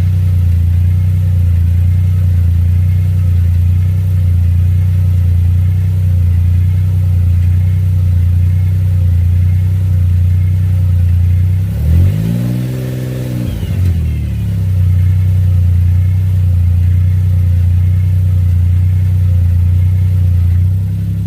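Suzuki Jimny's engine running with a steady drone; about twelve seconds in, the engine speed rises and falls back over a couple of seconds.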